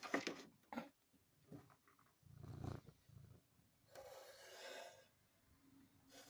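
A cat making quiet noises at birds: a few soft clicks, a short low-pitched sound, then a breathy noise lasting about a second.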